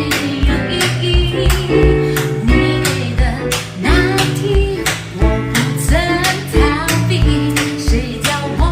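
Pop song playing: a woman singing over guitar and a steady drum beat.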